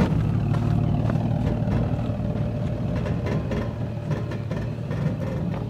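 Toyota 4Runner's 4.0-litre V6 running at low speed as the SUV crawls over rough dirt under crawl control, with frequent short clicks and knocks as the system pulses the brakes through the ABS.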